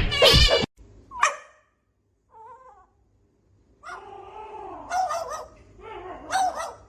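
A dog whining and yelping in a series of short, wavering calls, with a longer run of them in the second half.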